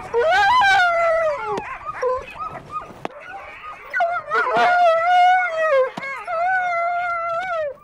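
Sled dogs howling: several long, wavering howls one after another, with a few short yips between.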